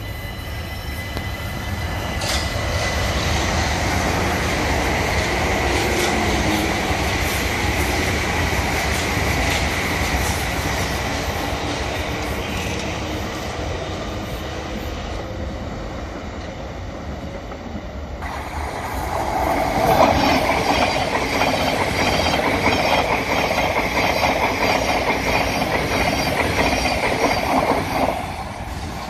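London Overground Class 378 electric trains running on the far tracks, a steady rumble with a thin high squeal. About two-thirds of the way in, a Thameslink Class 700 passes close at speed, louder, with a rhythmic clatter of wheels over the rail joints.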